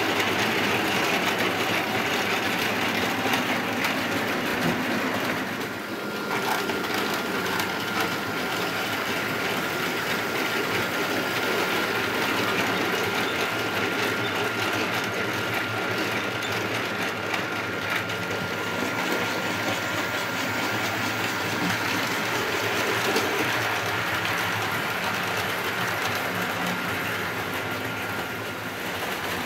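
OO-gauge model trains running on the layout: the steady hum of small electric motors and wheels rolling on track. A thin, steady whine joins about six seconds in and stops shortly before the end.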